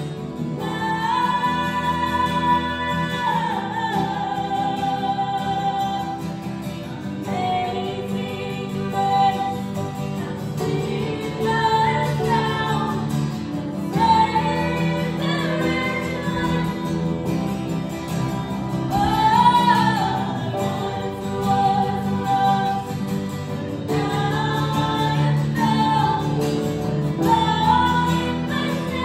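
A woman sings lead in long, slow held notes over acoustic guitar and a live band accompaniment.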